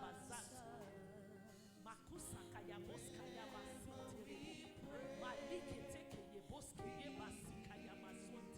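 Soft gospel worship music from a church choir and band: sustained chords under a wavering sung melody, with light cymbal strokes.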